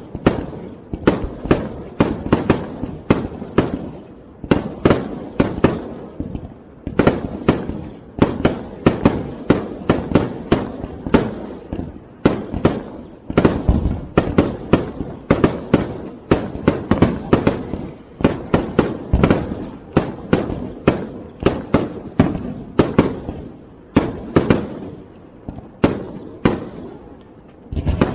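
Aerial fireworks show: a rapid, irregular barrage of bangs, several a second, each followed by a rumbling echo.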